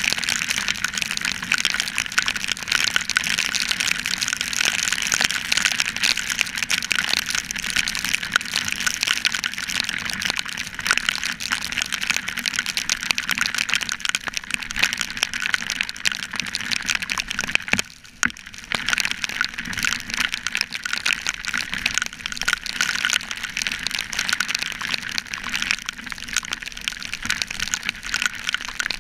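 Heavy rain and riding wind on a motorcycle-mounted GoPro: a dense, steady hiss crackling with raindrops striking the camera. It drops away briefly about two-thirds of the way through.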